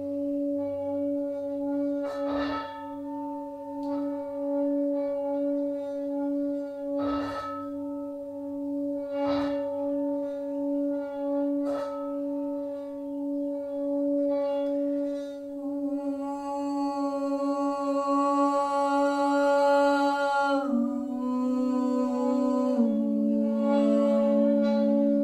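Tibetan singing bowls ringing with a slow, wavering hum, struck four times in the first half. In the second half a bright held tone swells and then stops, and a lower held tone steps down in pitch twice near the end.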